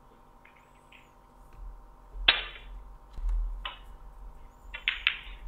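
Snooker balls clicking as shots are played: a sharp click about two seconds in, the loudest, another a little over a second later, and a quick double click near the end, with a low thud about three seconds in.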